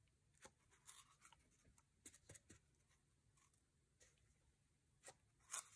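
Faint, scattered light taps and paper rustles: a cardboard toilet paper tube pressed onto a sheet of paper and craft dishes set down on the tabletop, with the loudest tap near the end.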